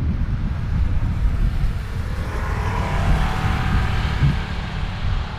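Heavy farm machinery's big diesel engine running steadily with a deep rumble. A higher-pitched machine hum swells in the middle and fades again.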